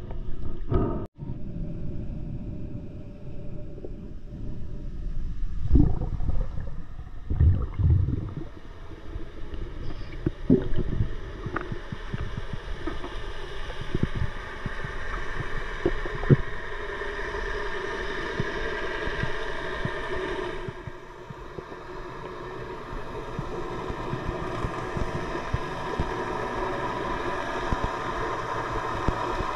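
Underwater sound with bubbling and dull knocks for the first ten seconds or so, then a steady drone of a boat motor heard through the water.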